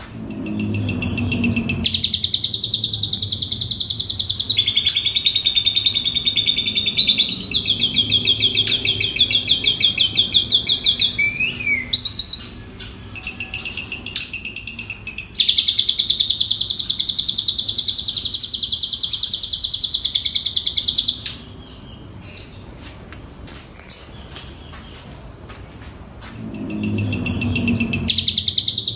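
Asian pied starling (jalak suren) singing a fast chattering, trilling song of rapidly repeated notes in long unbroken runs, with a quieter pause of a few seconds near the end.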